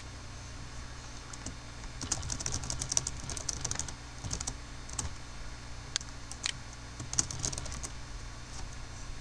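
Typing on a computer keyboard: a quick run of keystrokes about two seconds in, a few single key presses, and another short run near the end.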